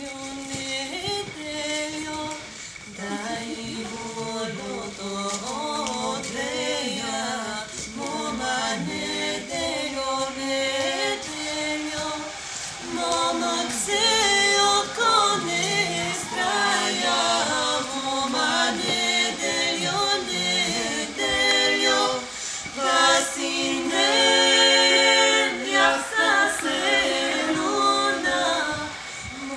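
An unaccompanied vocal trio, two women and a man, singing in harmony, swelling to a loud held chord near the end.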